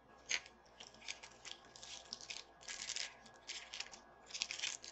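Faint rustling and light clicks of makeup brushes and their packaging being handled and sorted, with a sharper click about a third of a second in.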